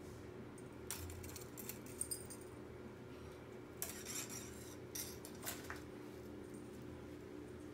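Small metal tag on a cat's collar jingling in several short bursts as the cat moves and swats at a feather wand toy, over a faint steady hum.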